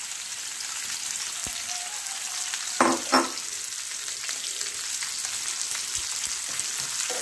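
Sliced onions sizzling as they fry in hot oil in a pan, stirred with a metal spoon: a steady high hiss, with two short louder sounds about three seconds in.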